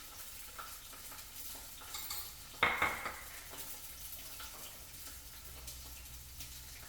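Food sizzling in a pan with scattered small clicks of a utensil against cookware, and one sharp metallic clink that rings briefly about two and a half seconds in.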